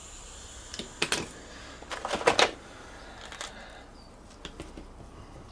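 Light clicks and clatters of small tools and parts being handled on a table, in a few irregular clusters. The loudest cluster comes about two seconds in.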